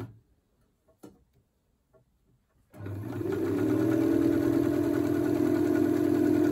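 Vintage Elna Lotus SP electric sewing machine straight stitching: it stops, stays quiet for a moment with one small click about a second in, then starts again near three seconds in and runs at an even, steady speed with a smooth hum.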